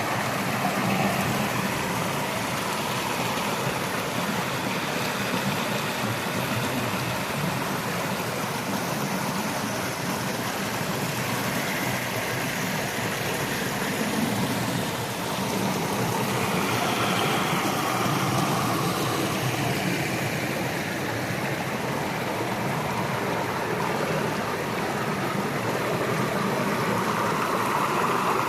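Stream water rushing and burbling steadily.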